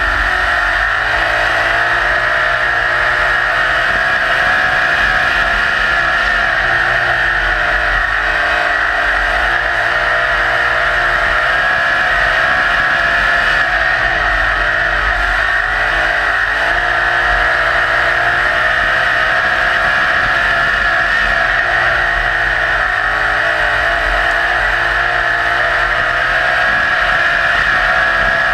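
Winged dirt-track sprint car's engine at high revs, heard on board under a loud steady rushing hiss. Its pitch sags and climbs back several times as the car turns through the corners.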